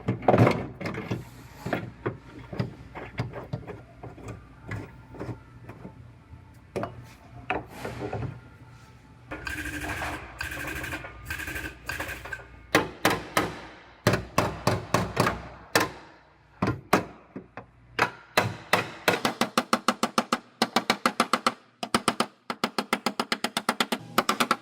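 Background music with percussion; a fast, even beat of about five strikes a second sets in near the end.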